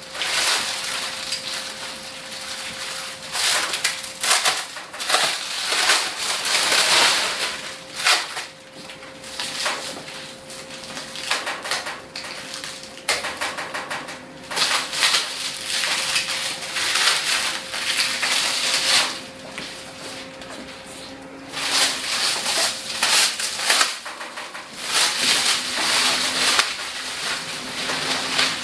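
Packaging being cut and pulled off by hand: plastic wrap and cardboard crinkling, tearing and scraping in irregular bursts with short pauses.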